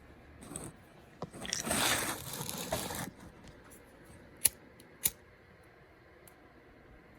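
Something torn or pulled apart by hand, a scraping, tearing rustle lasting about two seconds, followed by two sharp clicks about half a second apart.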